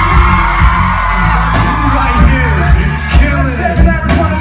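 Live pop band performing: male voices singing and calling into microphones over acoustic guitar and a steady pounding beat, with whoops and yells from the crowd, loud and heard from the audience floor.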